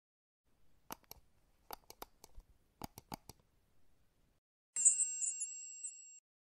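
Like-and-subscribe reminder sound effect: a string of about a dozen short mouse clicks, then, near the end, a bright high notification-bell ding that rings for about a second and a half.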